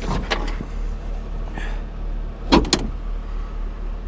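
Convertible top and its latch on a 2005 Chrysler Crossfire Roadster being helped closed by hand: a few light clicks at the start, then one loud clunk a little past halfway, over a low steady hum. The owner suspects the latch did not close all the way.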